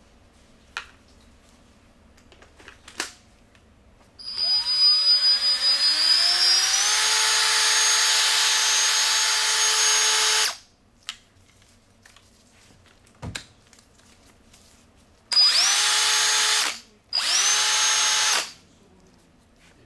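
Snap-on CDR6850A 18-volt cordless drill driver running: the motor whine winds up slowly in pitch and holds steady for about six seconds, then two shorter runs of about a second and a half each spin up quickly. There are a few sharp clicks before and between the runs.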